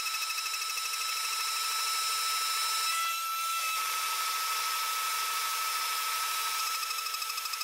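CNC milling spindle whining steadily as a single-flute endmill cuts 5083 aluminium plate on a trochoidal toolpath, with a hiss of cutting noise and a slight regular pulsing. The whine shifts briefly a little past three seconds in.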